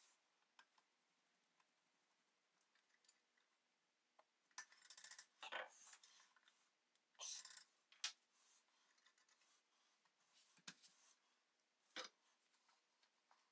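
Faint handling sounds of small metal parts being fitted by hand into a kitchen scale's pressed-metal body: scattered light clicks and short scrapes and rubs, with a sharper click near the end.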